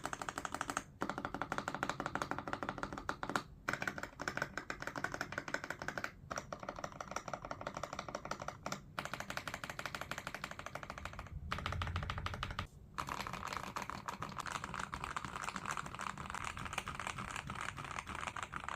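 Rapid, continuous typing on a CMK98 mechanical keyboard with Kailh Box Avocado switches: a dense run of key clicks broken by a few short pauses. A low rumble is also heard for about a second midway.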